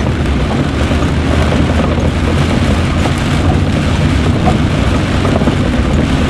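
Vehicle driving slowly on a wet gravel road: a steady, loud rumble of engine and tyres.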